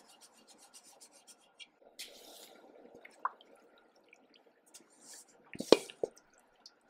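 Breaded steak sizzling faintly as it goes into hot peanut oil in a cast-iron Dutch oven, a soft hiss starting about two seconds in. A few sharp knocks near the end are the loudest sounds.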